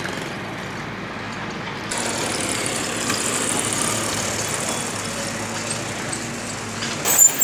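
Steady engine and road-traffic noise with a low steady hum, from vehicles and machinery running on the road beside the trench. A couple of loud thumps near the end.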